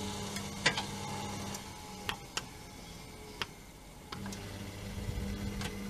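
Treadmill incline motor giving a low electrical hum that stops about a second in and starts again about four seconds in, with several sharp clicks in between.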